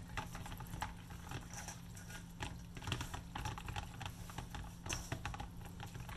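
Hands squishing and rubbing a grated ginger-and-garlic rub into raw chicken pieces in a stainless steel bowl: irregular wet squelches and small clicks.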